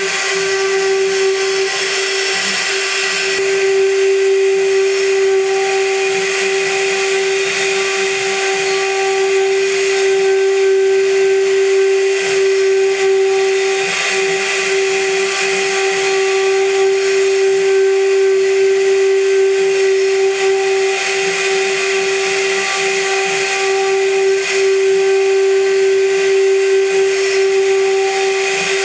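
High-frequency spindle of a CNC gantry milling machine running at constant speed while its cutter mills aluminium: a steady high whine over a continuous hiss of cutting, with small changes in the cutting noise along the way.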